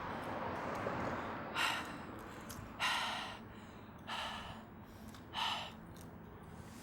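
A person breathing hard in loud gasps, four of them about a second apart, over a steady hiss.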